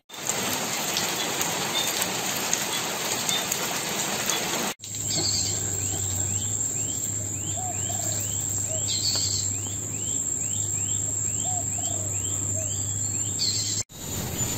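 Rain falling hard onto a puddle and rocks with a steady hiss. After a sudden cut comes forest ambience: a steady high insect drone and a bird repeating a short chirp about twice a second, with a few lower calls.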